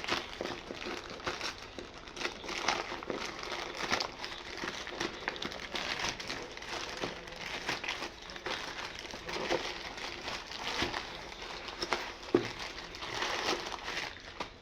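Plastic packaging of a microphone box being crinkled and pulled at by hand in an attempt to tear it open: continuous crackling rustle, with one sharp snap near the end.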